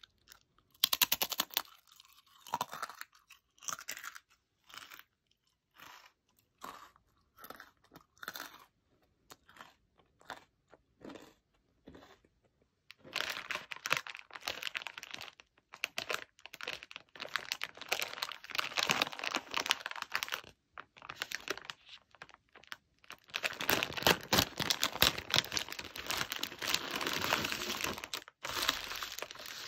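Crunchy coconut cracker being bitten and chewed in a dozen or so separate crunches over the first twelve seconds. After that comes the crinkling of a plastic snack bag of mini honey yakgwa being handled and opened, loudest near the end, where the individually wrapped pieces are.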